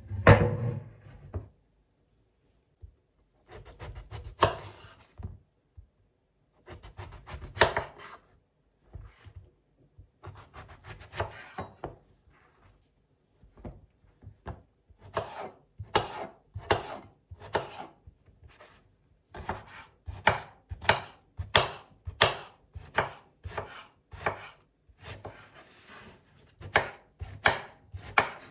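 Knife chopping food on a cutting board in short runs of quick strokes with pauses between, getting steadier and faster in the second half, after a heavier thump at the very start.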